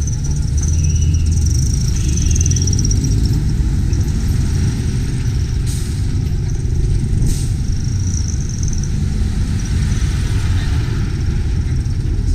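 Street traffic: a steady low rumble of passing vehicles, with two short hissy bursts near the middle.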